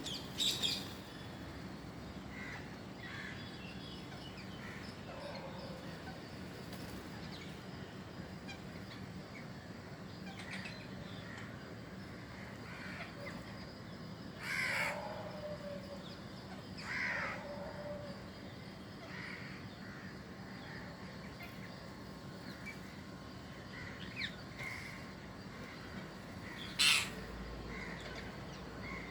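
Harsh bird calls: four loud ones spread out, about a second in, twice in the middle and once near the end, with fainter calls in between.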